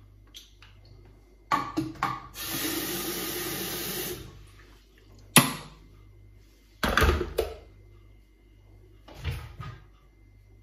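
Water running from a kitchen tap for about two seconds as a stainless-steel kettle is filled, with handling clicks just before. Then come a sharp click and a heavy clunk as the kettle is closed and set down, and a softer knock near the end.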